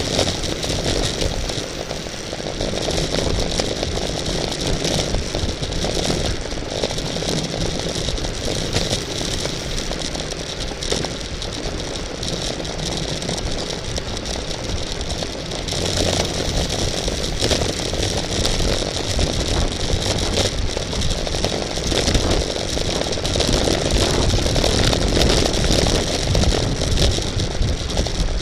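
Steady wind rush and road rumble from riding in a bicycle race, with a light rattle, growing louder about halfway through.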